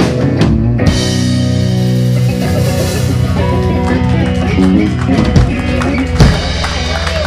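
Live band playing, with electric guitar and a drum kit with cymbal strikes over sustained low notes.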